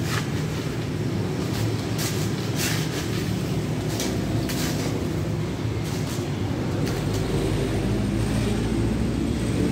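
Steady rumble of road traffic, with a handful of sharp clinks and scrapes as crushed ice is scooped from a cooler into a plastic cup.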